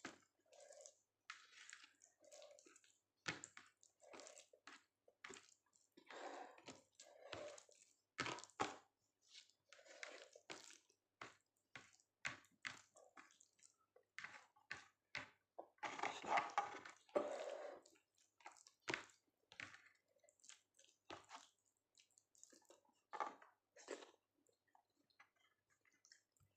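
Close-miked chewing of soft, wet food (dal, rice, Maggi noodles and egg): irregular mouth clicks and squishy smacks, with a longer, louder wet stretch about sixteen seconds in.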